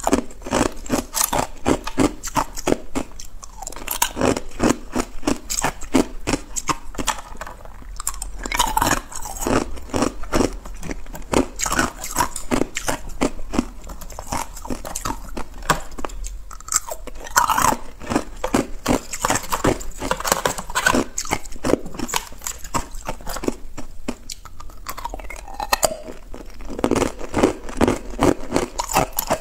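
Thin, brittle ice being bitten and chewed close to the microphone: a dense, continuous crackling crunch of many small sharp snaps. Loose thin ice pieces crackle and clink in the tray as fingers pick through them.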